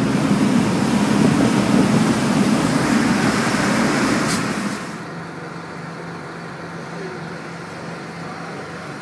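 Boat engine running under way with a loud rush of wind and water; about five seconds in the rush drops away abruptly, leaving a quieter, steady engine hum.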